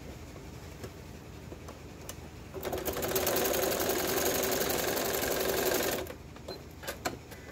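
Janome electric sewing machine stitching a short quarter-inch seam: it starts about two and a half seconds in, runs fast and steady for about three and a half seconds, then stops. A few light clicks follow.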